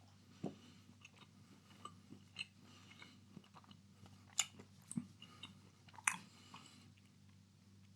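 A person chewing chocolate with the mouth closed: quiet, irregular chewing and mouth sounds with a few faint clicks.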